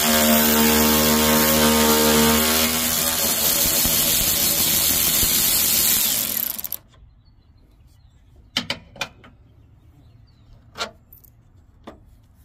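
Milwaukee M12 cordless 3/8-inch ratchet running steadily, backing out a 10 mm headlight-assembly screw, then stopping suddenly about seven seconds in. A few light clicks follow as the loosened screw is handled.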